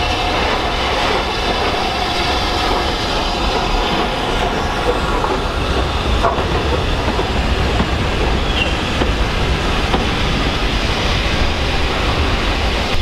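BR Standard Class 5 steam locomotive no. 73082 and its coaches rolling slowly past, a steady rumble of steel wheels on rail.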